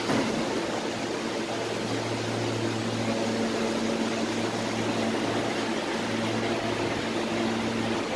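R160 subway car standing in the station, its air-conditioning and auxiliary equipment giving a steady hum with a constant low tone.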